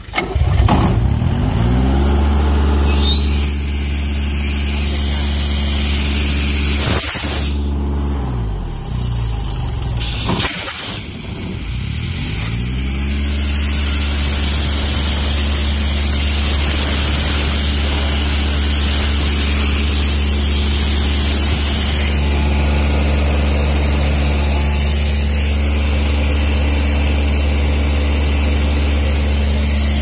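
Airman PDR90S air compressor's three-cylinder diesel engine started on the key, catching within about a second and settling into a steady run. Its speed sags and picks back up twice, about 7 and 10 seconds in, then it keeps running steadily.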